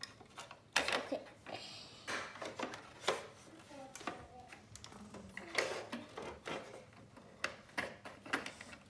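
Small plastic Sylvanian Families dollhouse pieces and figures clicking and knocking against the plastic house as they are handled, in irregular taps a dozen or so times.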